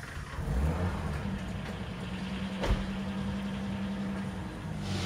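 1994 Acura Legend coupe's V6 engine idling steadily just after being started, with a brief rise about half a second in. A single sharp knock sounds about two and a half seconds in.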